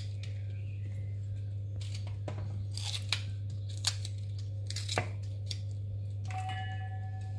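Knife slicing fresh okra pods lengthwise by hand, with a short crisp tearing crunch at each cut, several cuts spaced irregularly. A steady low hum runs underneath.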